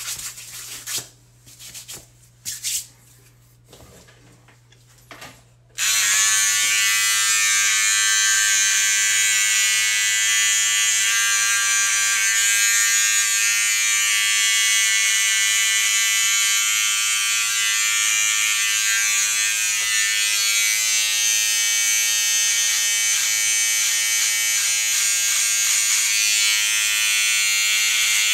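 Faint scattered rubbing and tapping, then about six seconds in a corded electric hair clipper switches on and buzzes steadily as it trims a full beard and mustache.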